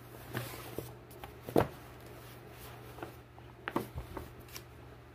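Books being handled and moved on a table: a few soft knocks and rustles, the loudest a single thump about a second and a half in, over a steady low hum.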